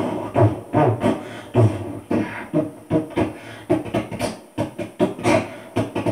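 A person beatboxing into a handheld microphone: low thumps and sharp clicks in a quick, uneven rhythm.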